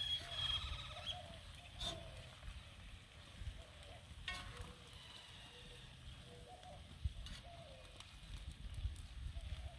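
Onions, mushrooms and sausages being stirred in a cast-iron skillet on a grill: a few sharp clinks of the utensil against the pan over a faint sizzle.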